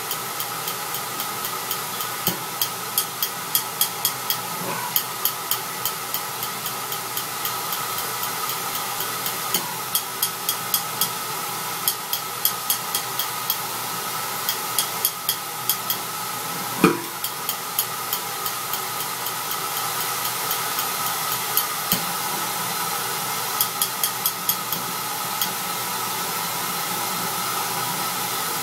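Steady hiss of flow and flame at a Rolls-Royce burner on a combustion test rig, with the spark igniter snapping in quick irregular runs of sharp clicks during ignition. The clicks thin out and stop near the end as the sparks cut out automatically. A single louder thump comes a little past halfway.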